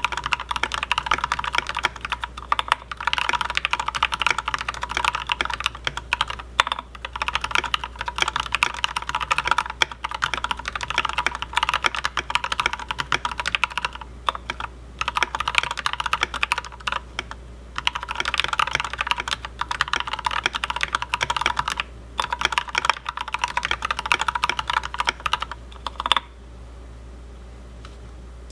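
Fast typing on a CFTKB Mysterium tenkeyless mechanical keyboard with lubed and filmed Black Ink V2 linear switches in a full brass plate, SA-profile keycaps and a stacked acrylic case. A dense, continuous stream of key clacks with a few brief pauses stops about two seconds before the end.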